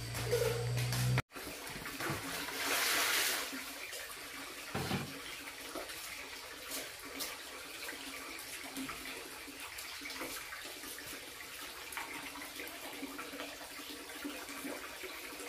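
Bath water running and splashing while a child is washed, with a louder rush of water about three seconds in. A low hum cuts off abruptly just over a second in.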